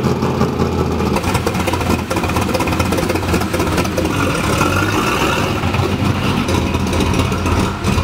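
LS-swapped BMW E36's 5.3-litre V8 running just after starting, a steady low engine note at idle.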